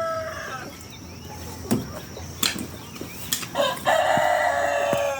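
Rooster crowing: the end of one long crow at the start, then another long crow from a little past halfway to the end, with a few sharp knocks in between.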